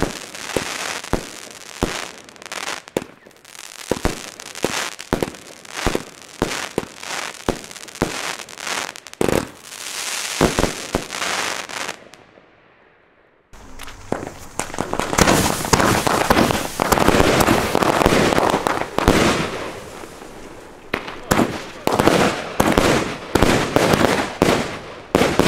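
Consumer firework batteries firing: a quick run of sharp launch bangs and bursts over a crackling hiss. About twelve seconds in it fades to near quiet. A second battery then starts abruptly with a dense, continuous crackle and further rapid bangs.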